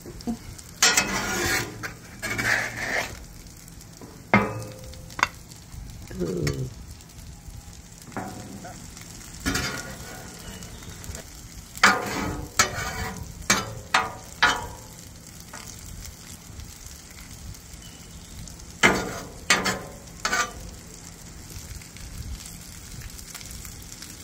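Egg sizzling on a hot Traeger Flatrock flat-top griddle, with a metal spatula scraping and tapping on the griddle steel in short strokes every few seconds.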